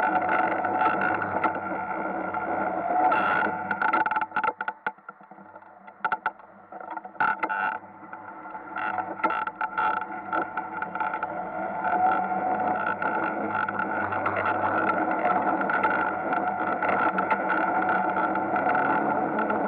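Ice kart's motor running steadily under throttle. About four seconds in it drops away for a few seconds with scattered knocks and scraping, then picks up and runs steadily again.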